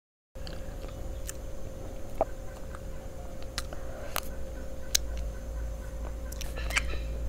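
Close-miked eating of an ice cream bar: sharp, wet mouth clicks and lip smacks scattered through, over a faint steady hum. The sound cuts in after a moment of dead silence at the start.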